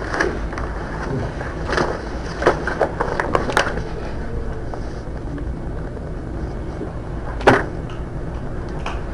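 Courtroom room noise: a steady low hum and hiss, with scattered short knocks and clicks, the sharpest about seven and a half seconds in.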